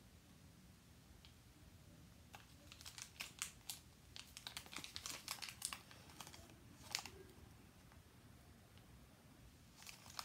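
Small pink plastic toy wrapper crinkling and crackling faintly in the hands as it is picked at and pulled open, in irregular bursts between about two and seven seconds in.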